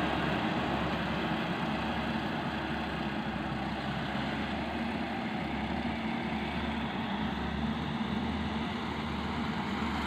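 MS708 tracked rice combine harvester running steadily as it cuts and threshes standing paddy, its diesel engine and threshing drum a continuous even drone.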